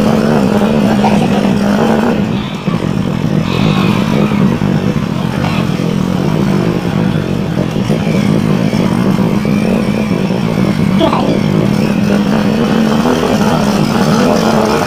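Small motorcycle engine running steadily at low speed on a rough dirt path, heard from on the bike itself. The engine note drops briefly about two seconds in, then holds steady again.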